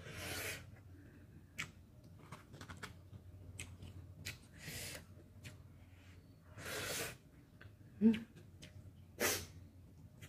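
Close-up eating sounds from a spicy ramen meal: a slurp of hot soup from a spoon at the start, then wet chewing clicks and mouth smacks, broken by three more short airy intakes of breath through the mouth.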